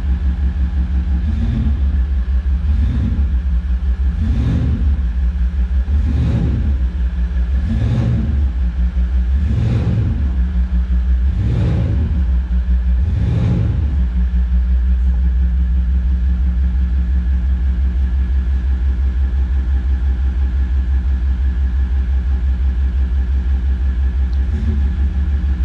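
Maserati Levante 3.0 V6 turbodiesel idling in sport mode with a deep, steady drone boosted by a Kufatec Sound Booster active sound module. The engine is blipped about eight times, once every second and a half to two seconds, then settles back to a steady idle, with one more small blip near the end.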